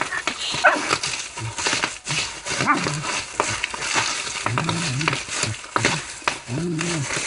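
Bubble wrap crackling with many quick pops as a Shetland sheepdog bites at it, with a few short low growls from the dog in the second half.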